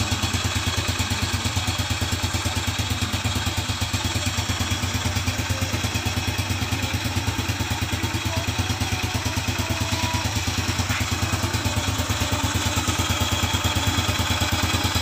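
Yamaha Nouvo automatic scooter idling with a steady, even pulsing and some clatter. This is the noisy CVT, the 'klotok klotok' knocking the owner sets out to cure.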